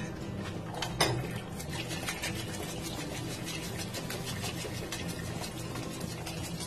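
Metal spoon scraping and pressing thick blended chile sauce through a wire-mesh strainer, a rapid run of rasping strokes, with a knock about a second in. A steady low hum runs underneath.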